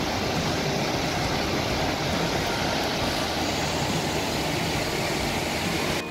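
Waterfall in full monsoon flood: a steady, loud rush of falling water, cutting off abruptly at the very end.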